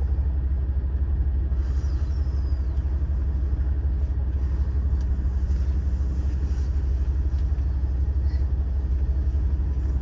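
Steady low rumble of a stopped diesel railcar's engine idling, heard from inside the passenger cabin.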